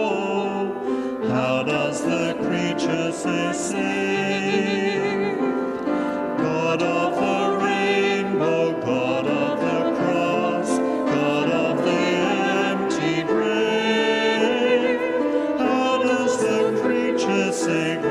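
Church congregation singing a hymn, several voices holding notes together.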